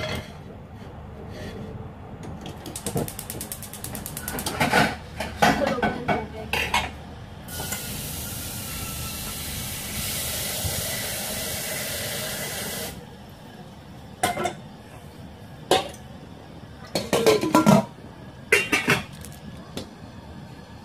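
Stainless steel cooking pot and glass lids clattering and knocking as they are handled on a gas hob, several sharp clanks in the second half. A brief run of rapid ticking comes near the start, and a steady hiss lasts about five seconds in the middle.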